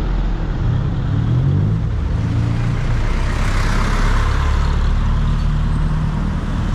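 A motor vehicle on the road close by: a steady low engine rumble, with a rush of noise that builds about three seconds in and fades again, as when a vehicle passes.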